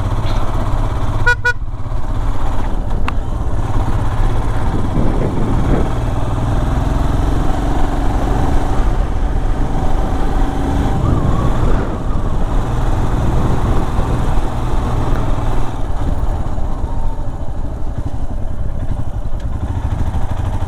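Royal Enfield Himalayan's single-cylinder engine running steadily as the motorcycle climbs a hill road, heard from the rider's seat. A short horn beep sounds about a second and a half in.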